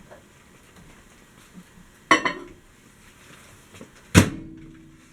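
Kenmore microwave oven door handled: a sharp clack about two seconds in as it comes open, and a louder bang with a brief ringing about two seconds later as it is shut.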